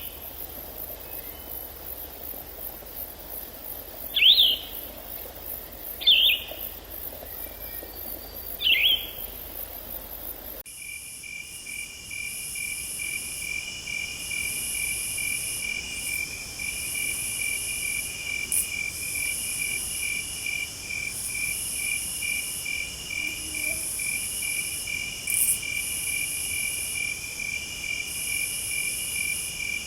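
Three short, sharp bird calls over a high insect buzz, then an abrupt change about ten seconds in to a steady chorus of crickets trilling in rapid pulses.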